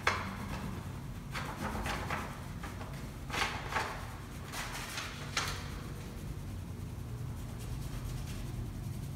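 Oil pastel rubbed across brown paper in short strokes, in quick groups during the first five seconds or so, then mostly a steady low room hum.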